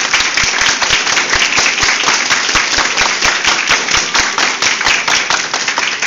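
An audience clapping loudly: dense applause with some sharp, close claps standing out.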